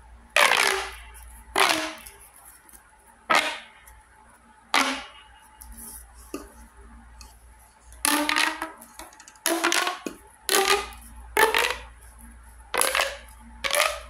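Red LED pop tube fidget toy being pulled out and pushed back in, each stretch giving a short burst of popping plastic ribs with a falling pitch. About ten such bursts, coming faster in the second half.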